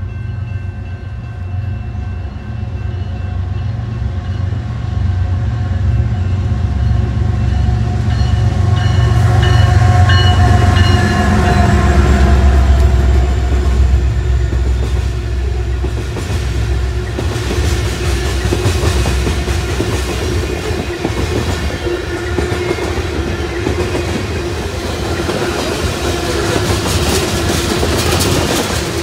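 Freight train passing: the diesel locomotives' deep engine rumble swells and is loudest about ten to fourteen seconds in. A long string of covered hopper cars then rolls by with a steady, hissing rumble of steel wheels on the rails.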